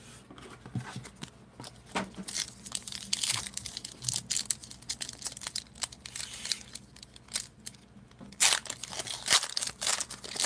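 Foil wrapper of a baseball card pack being torn open by hand, with irregular crinkling and ripping; the loudest rips come about eight and a half and nine and a half seconds in.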